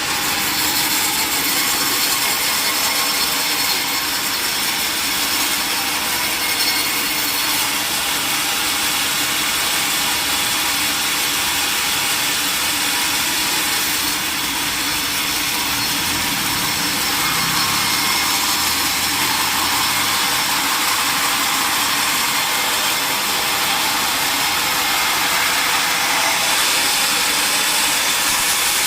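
Sawmill saw cutting lengthwise through a large mahogany log: a steady, loud, high-pitched sawing noise that keeps on without a break.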